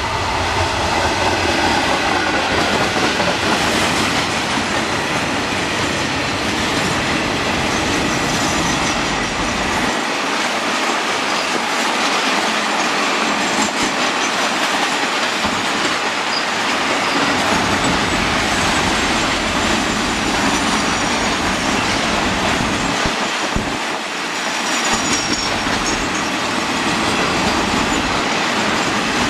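Freight train passing close by, led by a diesel locomotive. The locomotive's engine rumble is heavy for the first several seconds. It then gives way to a long string of container flatcars rolling past with a steady rattle and clickety-clack of wheels over rail joints, with thin wheel squeals at times in the second half.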